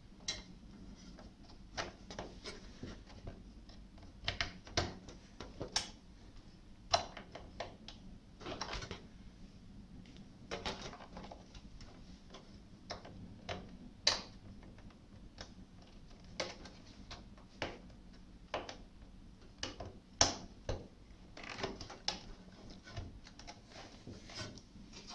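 Irregular sharp plastic clicks, taps and rustling of computer cables and connectors being handled inside a desktop PC case, as an IDE ribbon cable's connector is pressed onto the motherboard header. The clicks come at uneven intervals, about one every second or so, some much louder than others.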